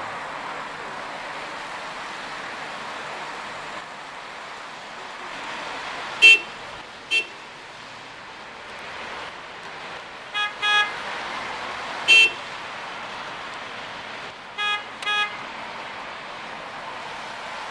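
Car horns honking in seven short toots, some single and some in pairs, the loudest about six and twelve seconds in, over steady street noise.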